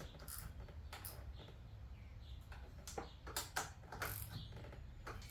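Faint, irregular clicks and light metal taps from hand tools and parts as a replacement carburetor is fitted to a Yamaha Raptor 80 quad's intake.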